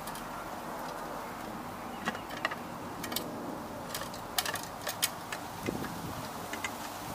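Scattered clicks and light knocks of hard plastic parts handled: a sediment filter cartridge set into a clear plastic filter housing and the housing fitted up to its cap, over a steady background noise.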